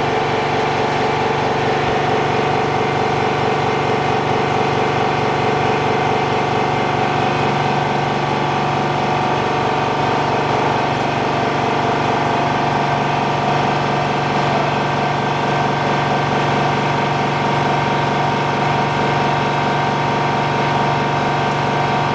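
Steady, even hum of a screen-lamination machine's motor-driven pump running, with a constant pitch and no change in level.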